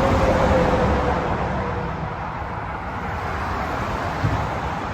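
Road traffic passing close by: a steady rush of tyre noise, with one vehicle's whine sinking slightly in pitch and fading over the first two seconds as it goes past.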